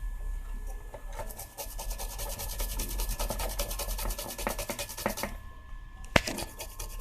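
Quick, even rubbing strokes as the opened parts of a radio's volume control potentiometer are scrubbed clean with kerosene, stopping about five seconds in; a single sharp click follows about a second later.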